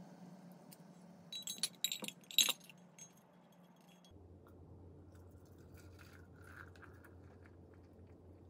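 A cluster of small metallic clinks and rattles against an enamel mug as loose-leaf tea is put in, the loudest about two and a half seconds in. From about four seconds in, a soft steady trickle of hot water poured from a gooseneck kettle into the mug.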